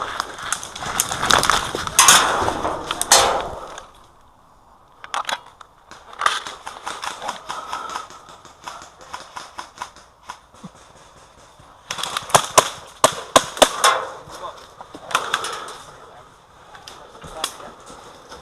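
Airsoft guns firing in skirmish bursts: sharp snapping shots in dense clusters, then a lull, then scattered single shots and a fast string of shots about two thirds of the way through.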